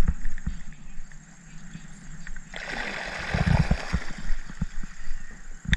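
Water splashing and swishing for about three seconds, starting a couple of seconds in, with a few dull low knocks.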